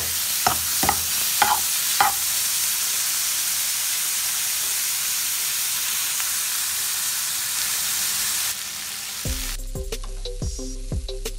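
Shrimp frying in melted butter in a skillet: a loud, steady sizzle, with a utensil knocking against the pan four times in the first two seconds. About nine seconds in, the sizzle cuts off and gives way to a quieter low hum with scattered ticks.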